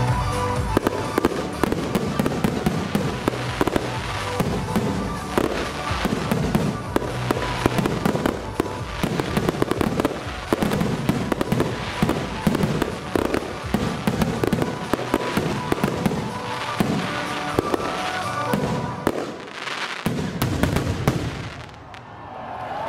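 Fireworks finale: a dense, continuous barrage of aerial shells banging and crackling. After a brief lull a last cluster of bangs goes off, then it dies away just before the end.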